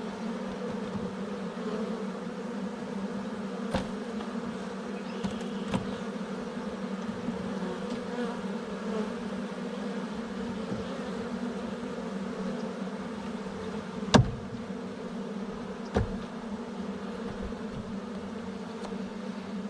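Honeybee swarm buzzing steadily in a dense hum around an open hive, with a few short sharp knocks, the loudest about fourteen seconds in.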